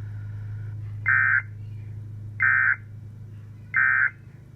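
Emergency Alert System end-of-message signal: three short bursts of SAME data tones, evenly spaced about a second and a third apart, marking the end of the alert. A steady low hum runs underneath.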